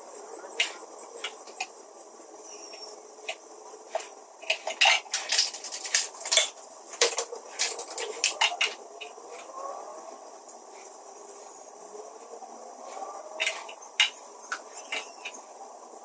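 Plastic bottle and improvised plastic funnel clicking and tapping against each other and the battery top while acid is poured into a car battery's cells. The clicks come irregularly, in a busy run through the middle and a shorter cluster near the end.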